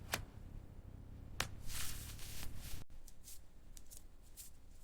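Faint scattered clicks and light ticks, with a short hiss about a second and a half in.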